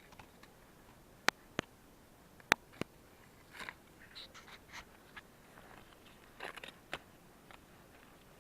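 Dry birch bark being broken up by hand: four sharp snaps in two pairs, with crinkling and rustling of the bark in between.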